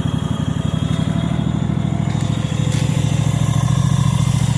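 Troy-Bilt 13039 garden tractor's engine running steadily, with an even, rapid firing pulse; it grows a little louder about halfway through.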